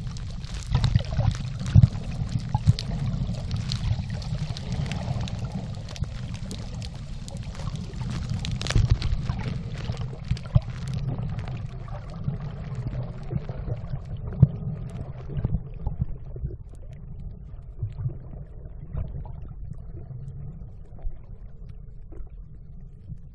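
Muffled water noise picked up by a phone microphone held underwater: a low rumble with gurgling, sloshing and scattered clicks. About halfway through, the higher hiss of splashing dies away, leaving mostly the low underwater rumble.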